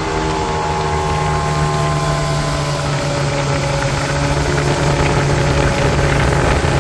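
Motorboat engine running steadily under load while towing a water skier, with the rush of wake water and wind over it.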